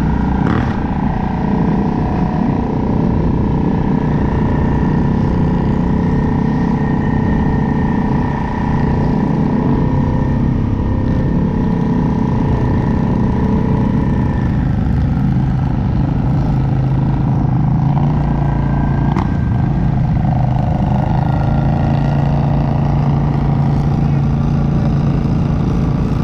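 A motor vehicle's engine running at a steady speed while driving, a continuous low rumble with a few steady tones over it. A single sharp click sounds about three-quarters of the way through.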